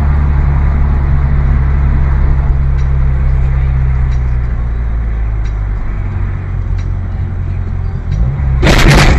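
Car interior driving noise, a steady low drone of engine and tyres that eases off as the car slows. About eight and a half seconds in, a loud sudden crash of a collision with a vehicle alongside, lasting about half a second.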